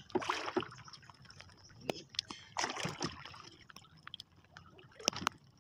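Water sloshing and lapping against a small outrigger boat's hull, with a few sharp knocks: around two seconds in, near three seconds, and just past five seconds.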